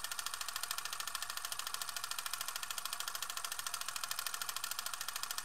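A steady, fast, even pulse, about a dozen beats a second and mostly high in pitch, with an engine-like running quality: a sound bed laid under a title card between interview answers.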